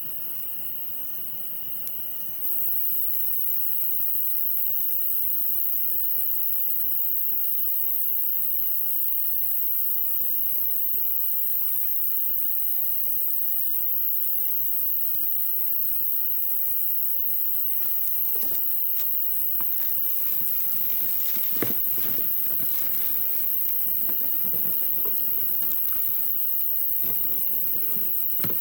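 Campfire crackling with scattered sharp pops, thickest in the last third, over a steady high insect chorus with short repeated chirps. The chorus gets louder a couple of seconds in.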